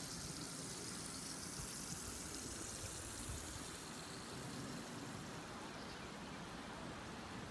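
Steady, even rush of running water from a stream.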